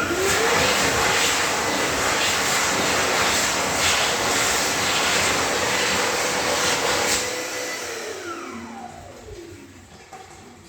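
Electric hand dryer starting up, its motor whine rising quickly as the air blast comes on. It blows steadily for about seven seconds, then cuts off, its whine falling as the motor winds down.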